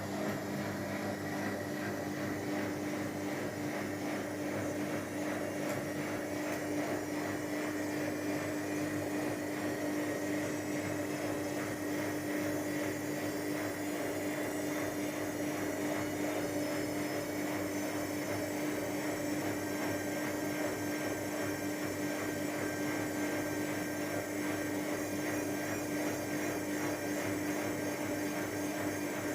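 Whirlpool AWOE 91402 front-loading washing machine on a 600 rpm spin cycle: a steady motor hum and whine with a strong low tone, the faint high tones rising slowly as the drum spins.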